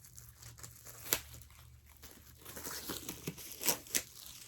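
Wrapping on a sealed pack of photos being torn open and crinkled by hand: irregular rustling with a few sharp crackles, one a second in and two close together near the end.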